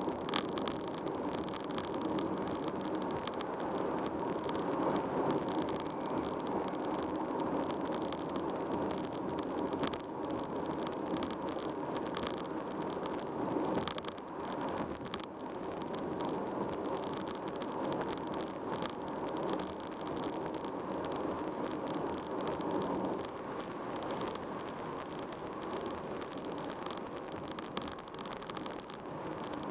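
Steady road and tyre noise of a car driving at highway speed, with small swells and dips in level.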